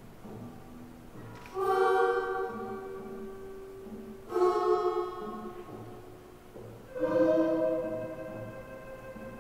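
Music: three loud sustained chords, each swelling in and then fading, over a soft repeating low pulse.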